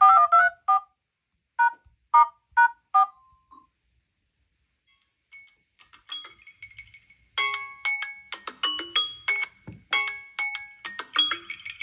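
Samsung Galaxy Z-series phone ringtones. First four short notes, then a pause, then a faint melody. About seven seconds in, a loud ringtone of quick, short, bright notes takes over.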